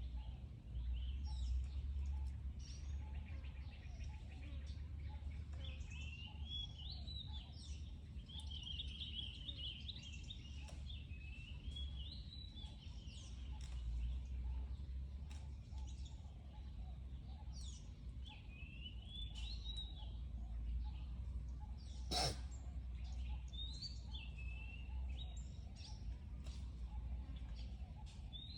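Birds chirping and calling continually in short, swooping notes over a low steady rumble, with one sharp click about twenty-two seconds in.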